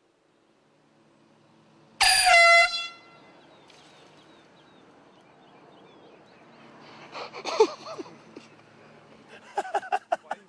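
A single loud blast from a handheld air horn about two seconds in, lasting under a second.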